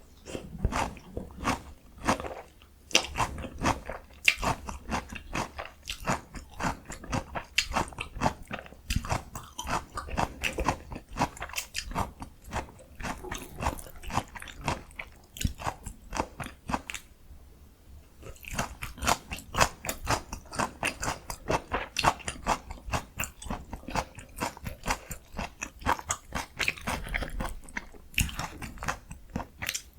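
Close-miked crunching and chewing of breaded, fried pork cutlet (donkkaseu): rapid crisp crackles of the crust being bitten and chewed, with a short lull partway through.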